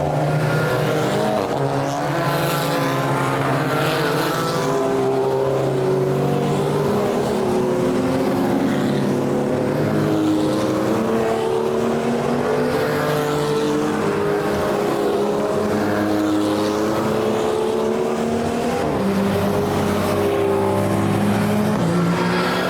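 Race cars passing one after another, their engines revving up and down through gear changes, with several engine notes often overlapping.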